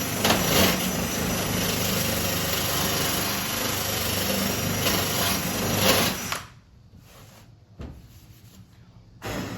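Electric grinder running against sheet steel for about six seconds with a steady high motor whine, stopping abruptly, then a short second burst near the end. It is grinding a floor-pan steel patch plug and the hole edges down to fit before welding.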